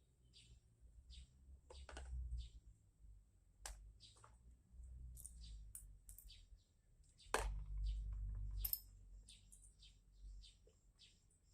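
Light clicks and knocks of small parts being handled, with repeated short bird chirps throughout. A louder knock comes about seven seconds in.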